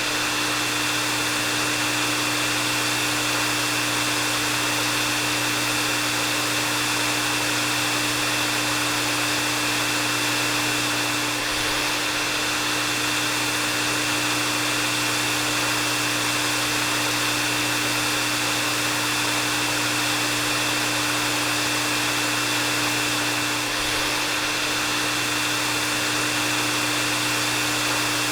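Hair dryer running steadily: an even rush of blown air with a constant motor hum and a thin high whine that never changes.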